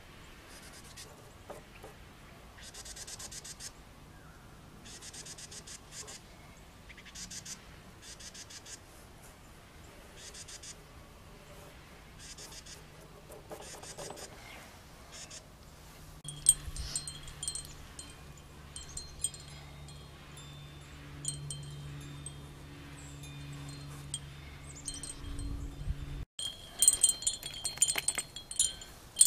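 Wind chimes ringing off and on, clearest in the last few seconds, over a low steady hum in the second half.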